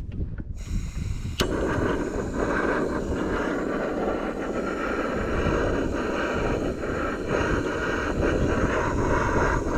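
Portable gas camping stove being lit: gas hisses, the igniter clicks once a little over a second in, and the burner catches into a steady rushing roar that runs on.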